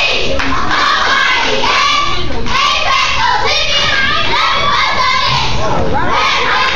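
A crowd of children shouting and cheering, many high voices overlapping at once.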